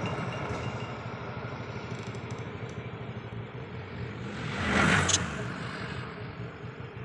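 Steady outdoor background noise, swelling briefly about five seconds in as something, likely a passing vehicle, goes by.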